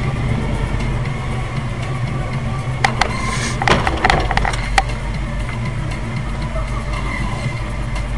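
Steady low rumble of a car's engine and road noise, with a short cluster of sharp knocks and clatter about three to five seconds in.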